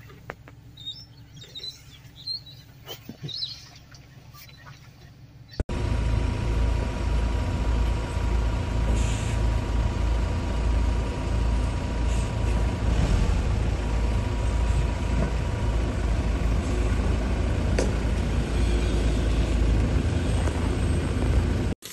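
Birds chirping over a faint background. About six seconds in it cuts abruptly to the loud, steady low rumble of a vehicle engine running close by, which stops suddenly just before the end.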